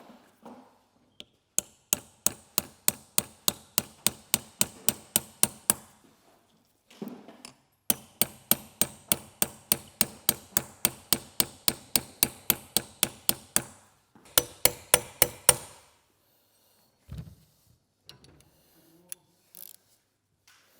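Hammer striking the metal oil pump in steady runs of about three to four ringing blows a second, working the pump apart, with three runs and short pauses between them and a few lighter knocks near the end.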